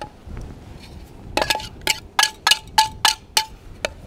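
Wire whisk and enamelware bowls clinking: a run of about nine sharp metal taps, roughly three a second, each with a short ring, while the wet mix is poured out of one enamel bowl into another.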